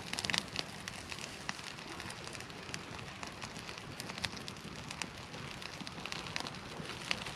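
Small fire of birch bark and pine-needle tinder crackling with scattered sharp pops as it catches, with rain pattering throughout.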